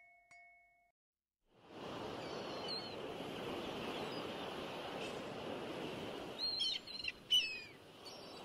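Open-air waterside ambience: a steady hiss with birds calling in short, high, gliding notes, a quick cluster of calls about two-thirds of the way through.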